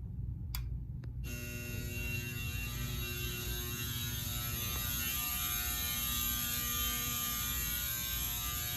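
Fire alarm horns, Simplex 4903-9219, sounding a steady, buzzy, muffled tone that comes on about a second in, just after a click, over a low electrical hum.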